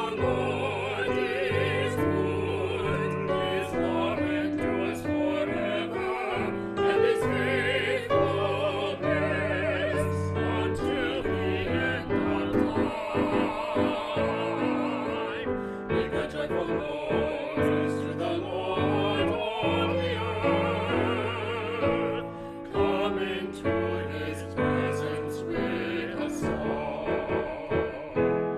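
A small ensemble of mixed voices, women and men, sings a choral anthem in a classical style with vibrato, accompanied by piano.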